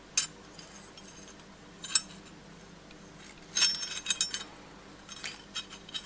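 Forged iron ring and hook clinking together as they are handled. There are single clinks about two seconds apart, a quick rattling cluster near the middle, and a few lighter clinks near the end.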